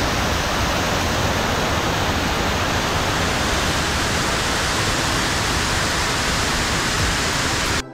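Mountain waterfall close by: a steady, dense rush of falling water that cuts off suddenly near the end.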